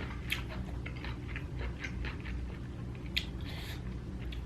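A person chewing food with the mouth close to the microphone: a string of small, irregular wet mouth clicks and smacks, with one sharper click a little past three seconds in.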